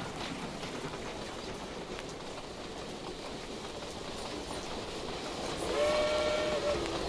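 Steam locomotive on the move, with a steady rushing noise, then one steam whistle blast of about a second near the end that drops in pitch just as it cuts off.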